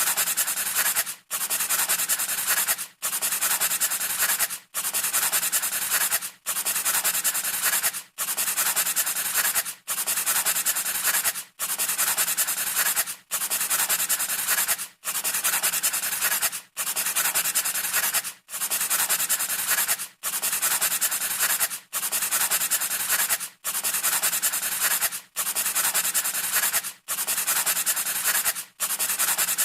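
Scratchy rubbing noise in long, even strokes of about 1.7 s, each broken by a brief gap and repeating identically like a looped sound effect.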